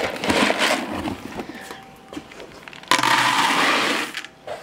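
A hand rustles and crunches through dry feed pellets in a paper feed sack. About three seconds in, pellets pour into a plastic bucket with a steady rushing hiss that lasts about a second and stops sharply.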